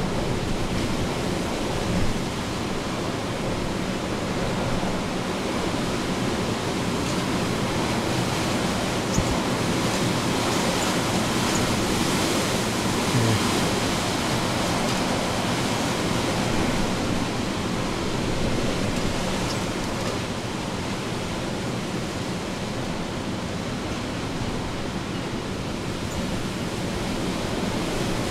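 Hurricane Ida's wind and rain, a steady loud rush with no break.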